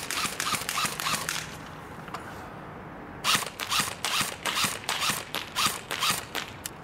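Echo 1 Platinum M4 airsoft electric rifle (AEG) firing rapid single shots, each a sharp snap, about four a second, in two strings split by a pause of about a second and a half.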